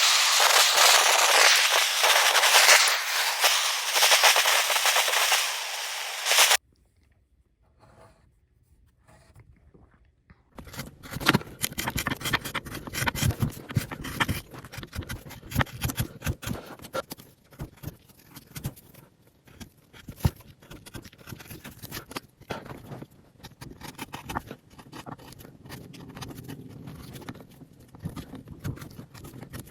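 Chainsaw cutting into wood, which stops abruptly about six seconds in. After a few seconds of near quiet, a long run of irregular clicks and scrapes follows, the sound of hand work on the wood.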